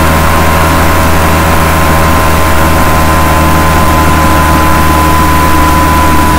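A loud, steady machine drone: a heavy low hum with several held tones above it and a hiss over everything, holding an even pitch.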